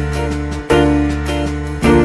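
Background music: held, ringing chords, with a new chord struck about two-thirds of a second in and again near the end.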